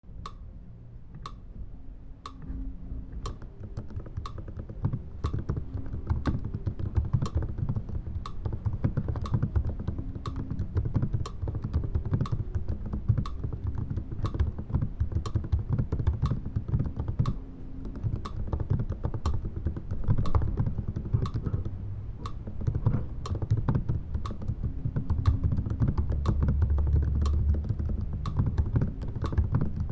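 Fingers typing steadily on a computer keyboard, a dense run of keystrokes. Under it, a separate sharp click repeats at an even pace, about one and a half times a second.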